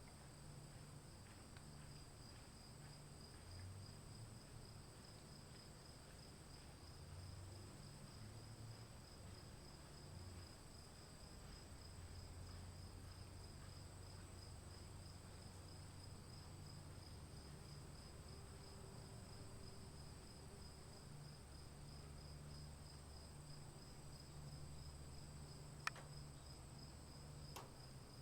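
Faint outdoor ambience: insects trilling in a steady, high, pulsing drone over an uneven low rumble. A single sharp click comes near the end.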